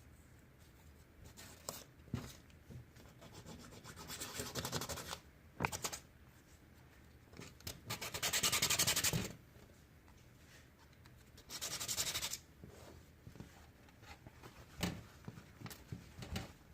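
An emery board scuffing the face of a 3D-printed iron-composite PLA grill, in three bursts of quick back-and-forth strokes, the middle one the loudest, with a few light knocks of handling between them.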